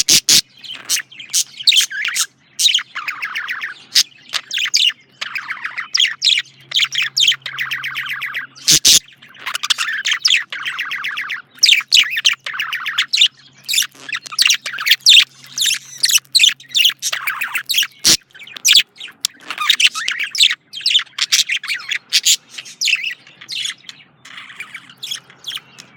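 Male budgerigar chirping and warbling in a near-continuous stream of rapid chirps and buzzy trills, broken by short pauses, with a few sharp clicks.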